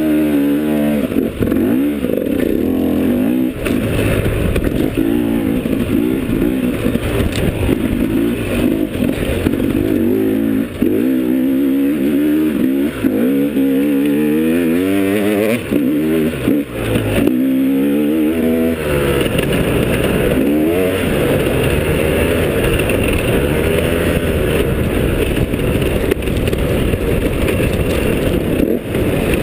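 Enduro dirt bike's engine under hard riding, revving up and dropping back again and again for the first two-thirds, then held more steadily over the last ten seconds.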